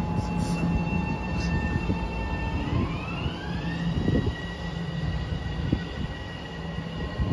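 Metro-North electric multiple-unit train pulling out. The electric traction drive whines on steady tones, then about three seconds in the whine rises in pitch as the train gathers speed, over a low hum and rumble.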